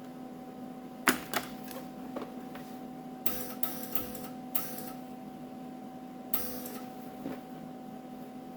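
MIG welder humming steadily, with a sharp click and several short bursts of arc crackle, as in tack or stitch welding on sheet-metal fender holes.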